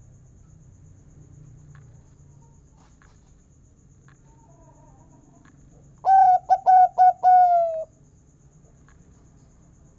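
Zebra dove (perkutut) calling once about six seconds in: a few short quick coo notes, then a longer drawn-out note that sags slightly in pitch at the end. A faint low hum underlies it.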